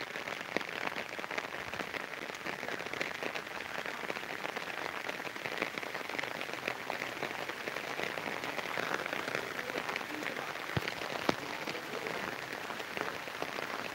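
Heavy rain falling steadily on an umbrella held overhead, a dense hiss full of small drop ticks.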